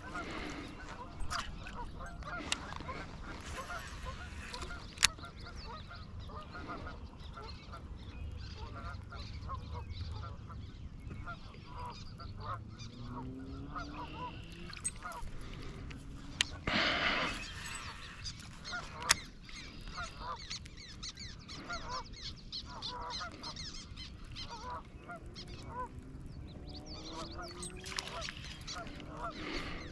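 Geese honking repeatedly across the water, with a brief louder rushing noise a little over halfway through.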